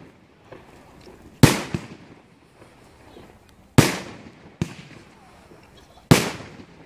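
Aerial fireworks bursting overhead: three loud bangs a little over two seconds apart, each trailing off in an echo, with lighter pops between them.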